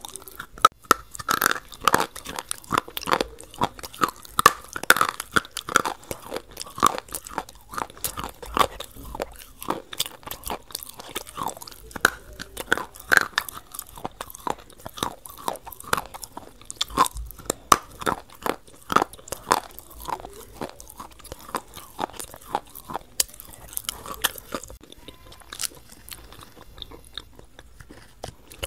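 Close-miked crunching and chewing of crunchy food: a sharp crunch every half second or so, with wet chewing between.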